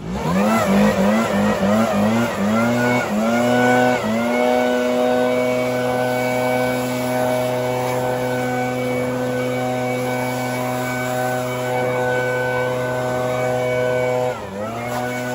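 Leaf blower running. It surges up in quick repeated throttle bursts for the first few seconds, then holds a steady high pitch while blowing debris off the roof. Near the end the throttle eases off briefly and the pitch dips before picking back up.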